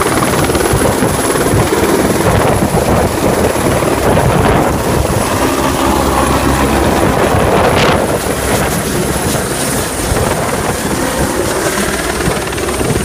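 Rescue helicopter hovering close by: a steady, loud rotor and engine noise with a thin high whine over it, easing slightly about eight seconds in.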